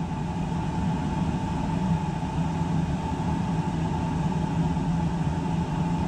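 Oil burner on a hot-water boiler firing steadily on a call for heat, a continuous low hum with a thin, steady higher tone.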